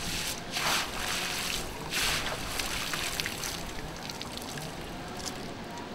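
A dip net swept through the shallow water of a stone fish trap, splashing in three bursts within the first two and a half seconds, followed by lighter dripping and trickling.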